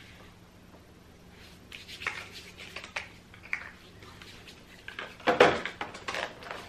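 Handling noises: scattered rustles and light knocks of hands and a lotion tube as body lotion is rubbed into the hands. The loudest clatter comes about five seconds in.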